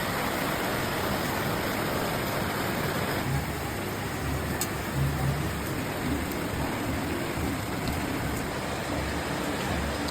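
Heavy rain falling in a steady hiss, with a low rumble coming in from about three seconds in.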